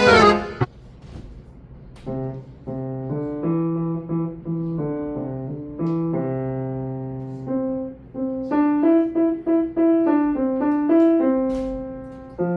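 Piano playing a simple children's melody over low bass notes at an even pace. A loud passage of full chords stops about half a second in; after a short pause the playing picks up more softly, with a quicker run of notes past the middle.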